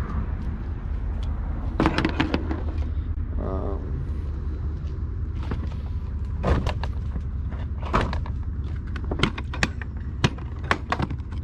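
Oscilloscope test leads, probes and clips being picked up and handled, making scattered sharp clicks and knocks over a steady low hum.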